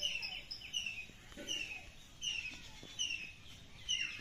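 A small bird calling, repeating a short falling chirp about every three-quarters of a second.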